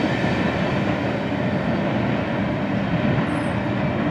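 Covered hopper cars of a freight train rolling away on the rails: a steady wheel-and-rail rumble that slowly fades as the train recedes.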